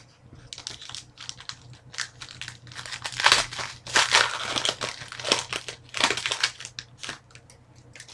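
Crinkling and crumpling of a foil trading-card pack wrapper being handled, in quick irregular crackles that are loudest in the middle.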